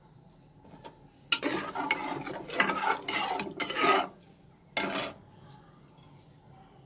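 Metal spatula stirring liquid dal in a pressure cooker pot, scraping against the pot's sides and bottom in a quick run of strokes, then one more short stroke about five seconds in.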